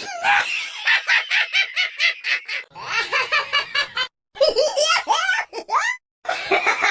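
High-pitched cartoon character laughs, each a fast run of short "ha-ha" pulses, played one after another with two brief silent breaks between clips.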